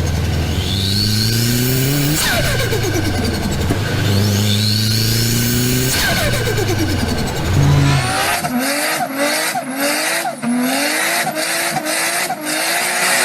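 Turbocharged car engines accelerating hard through the gears, the pitch climbing and dropping at each shift. About eight seconds in, a different car takes over with a rapid, choppy stuttering: turbo flutter, the compressor surging when the throttle snaps shut under boost.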